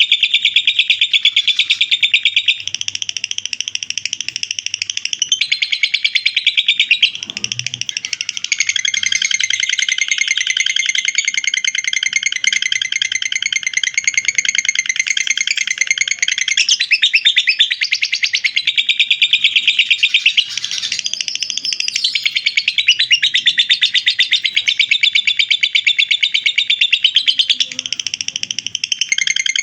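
Lovebird singing a long, unbroken ngekek: a rapid, high-pitched chattering trill that runs on without pause and shifts its pattern every few seconds.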